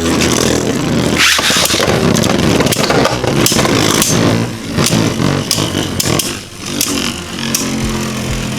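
Two Beyblade Burst spinning tops, Revive Phoenix and Vise Leopard, whirring in a plastic stadium and clashing again and again, with many sharp clicks of collisions over a steady spinning hum.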